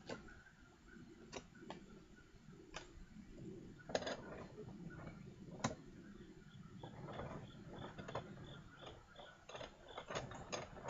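Scattered light clicks and clinks of small metal block-plane parts being handled and set down.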